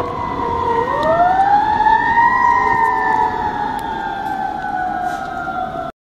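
Fire truck siren wailing. Its pitch sags, winds up again about a second in, then slowly falls away, over a rumble of street traffic.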